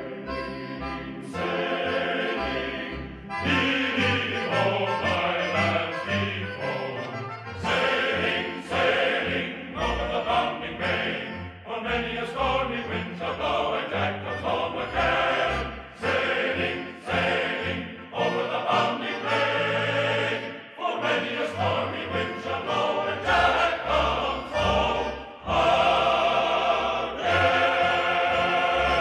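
Choir singing a sea chanty with orchestral accompaniment.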